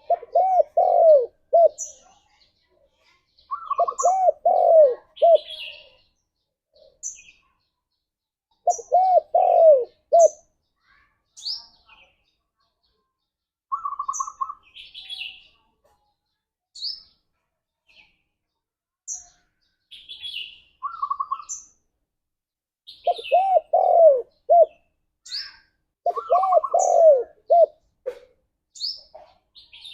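Spotted doves cooing: five phrases of several arched, low coo notes in quick succession, separated by pauses. Short trills and high, thin chirps from small birds fall between the phrases.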